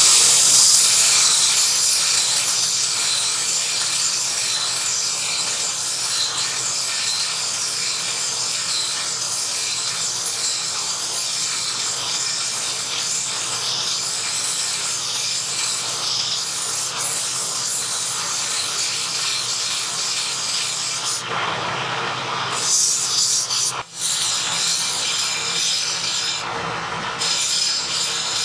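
Belt grinder running with a rusty steel saber blade pressed against its abrasive belt: a steady grinding hiss as the belt scours rust off the blade. The sound breaks off for an instant about three-quarters of the way through, then carries on.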